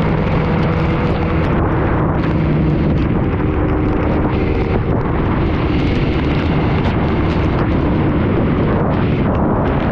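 Heavy wind noise blasting the camera microphone on a superbike riding at highway speed in the rain, with the motorcycle engine's steady note faintly underneath.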